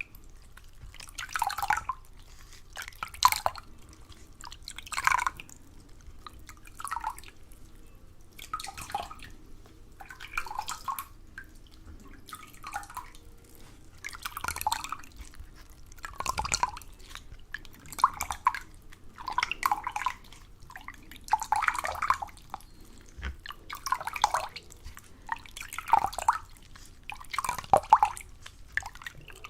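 Water sounds made for ASMR: short, separate liquid drips and splashes coming about once every two seconds, some louder than others.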